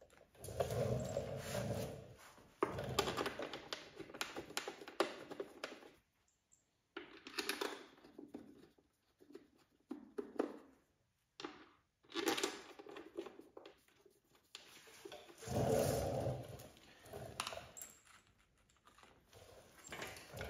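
Plastic timing-belt covers being handled and fitted onto a Subaru EJ257 flat-four: irregular scrapes, knocks and thunks, with clothing rustling close by, in bursts with short pauses between.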